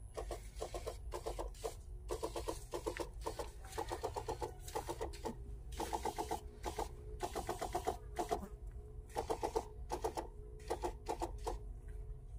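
Backpack sprayer pump running in short bursts of rapid pulses, about ten a second, stopping and starting again every second or so while fungicide is sprayed.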